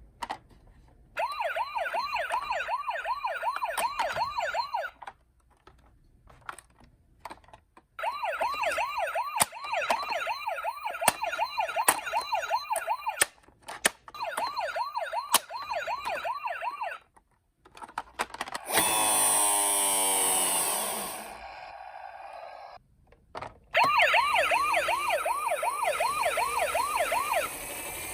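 Electronic toy siren sounds from ambulance minicars: several bursts of a fast warbling yelp, broken by short gaps and clicks, and once a different siren made of quickly falling glides.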